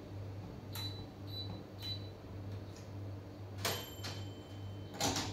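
Touch controls of an electric glass-top hob beeping as the burners are switched on to heat. There are three short high beeps about half a second apart, then a click and a longer steady beep, and a sharp click near the end, over a low hum.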